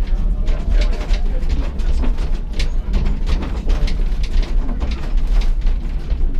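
Heidelberg Bergbahn funicular car running on its rails, heard from inside the car: a steady low rumble with frequent short clicks and knocks from the wheels on the track.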